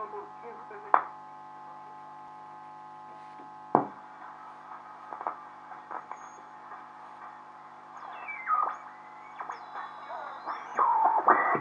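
Volksempfänger VE301W tube radio being tuned on a makeshift antenna. A steady hum and crackle run through, with two loud clicks early. Later a whistle glides down in pitch and squeals come in as the dial passes stations, the squeals typical of a regenerative receiver's heterodyne whistles.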